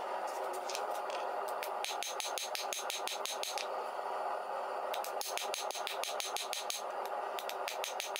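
Rapid hammer blows on a glowing bar of bloom steel on the anvil, in two quick runs: one starting about two seconds in and another from about five seconds, over a steady background roar.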